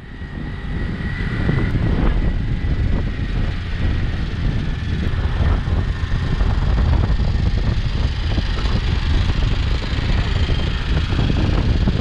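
Driving noise from a camera on a moving vehicle: a steady low rumble of engine, tyres and wind buffeting the microphone, building up over the first second.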